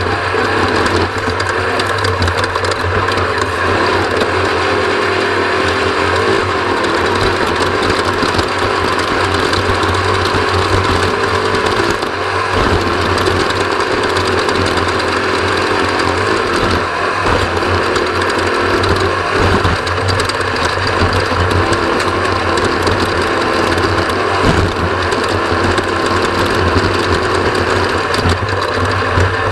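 Off-road race vehicle's engine running hard and steadily at speed, its pitch rising and falling a little with the throttle.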